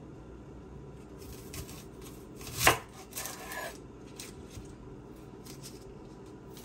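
Knife chopping fresh seasonings on a cutting board: irregular short cuts and taps, with one loud knock a little under three seconds in.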